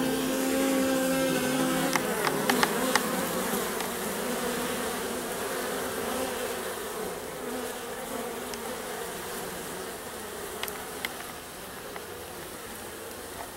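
Honey bees from a wild colony in a hollow tree buzzing as they fly in and out of the cavity entrance. The buzzing slowly gets quieter.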